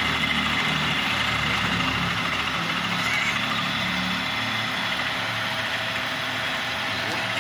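Drill-milling machine running, its milling cutter cutting into the edge of a steel plate clamped in a vise and throwing off chips: a steady mechanical running noise with the hiss of the cut.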